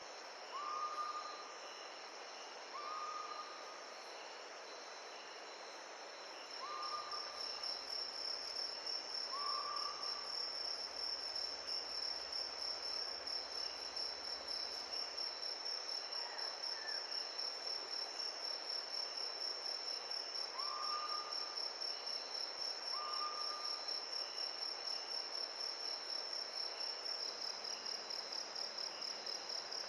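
Crickets chirring in a continuous high-pitched, rapidly pulsing trill that grows louder about six seconds in, over a steady rush of water. A few short whistled notes sound several times in the first ten seconds and again near twenty seconds.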